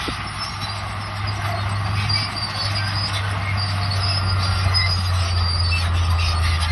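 Crawler bulldozer working: the diesel engine runs with a steady low drone while the steel tracks squeal and clatter.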